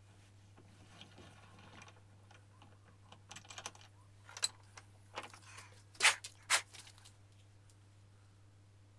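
Hand tools and a small threaded metal part clinking and clicking at a bench vice: a light rustle, then scattered small clicks and two sharp metal clinks about six seconds in.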